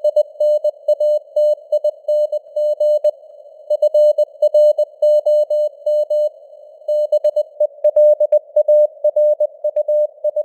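Computer-generated Morse code (CW) at 20 words per minute: a steady single-pitched tone keyed in dots and dashes over a narrow band of simulated radio hiss. The keying pauses briefly about three seconds in and again about six seconds in.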